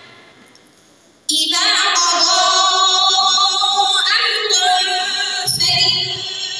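A woman's melodic Qur'anic recitation (tajwid) through a microphone. The echo of the previous phrase dies away, then about a second in she starts a new phrase in long held notes with wavering ornaments.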